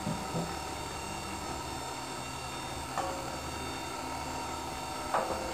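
Electric stand mixer running steadily at medium speed, its motor humming as it beats butter, sugar and egg yolk in the metal bowl. A few short knocks sound just after the start, about three seconds in, and near the end.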